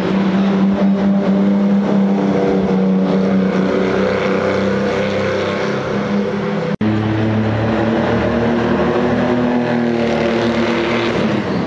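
Lamborghini Countach's V12 engine running hard at a steady pitch as the car drives round the circuit. About two-thirds of the way through, the sound drops out for an instant, then resumes with a lower engine note that wavers up and down as the car passes.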